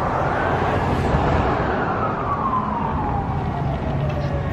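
Emergency-vehicle siren wailing: one slow rise in pitch followed by a long fall, starting to rise again at the very end, over steady background noise.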